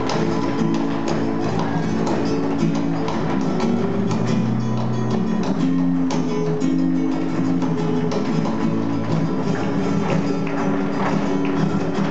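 Live flamenco music in the cantiñas style: guitar playing over rhythmic hand-clapping (palmas), with many sharp strikes at a quick, even pace from the clapping and the dancers' shoe footwork on the stage.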